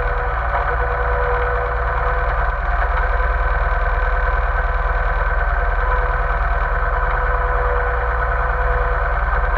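Tractor engine running at a steady idle, an even rapid beat that holds unchanged throughout.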